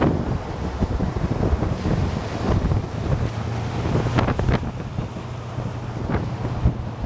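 Wind buffeting a camera microphone moving at highway speed, over a steady low drone of road and engine noise, with a few sharp wind pops partway through and near the end.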